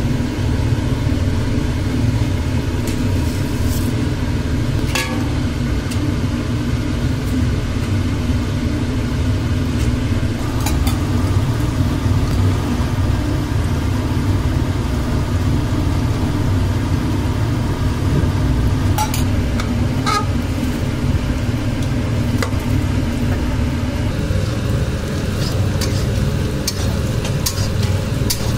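Whole spices and then sliced onions frying in hot oil in a pan, with light sizzling over a steady low kitchen rumble. Now and then a sharp clink of a metal utensil against the pan.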